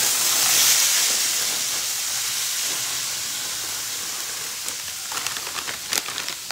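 Frozen hash browns sizzling in hot oil in a pan: a loud burst of sizzling that peaks about a second in and slowly dies down, with a few light clicks and pops near the end.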